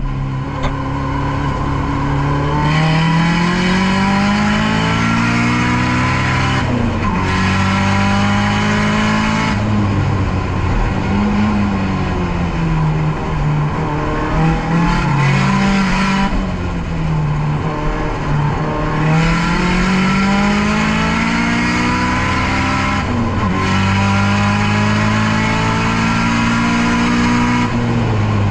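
Nissan S13's SR20DET turbocharged four-cylinder engine at full load on track, its pitch climbing hard, dropping sharply at the gear changes, and falling back when off the throttle for corners before pulling again.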